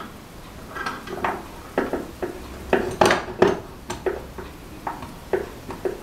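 Metal locking pliers clicking and clinking against the table and battery as a wire is clamped in their jaws: a string of sharp clicks and knocks, loudest about three seconds in.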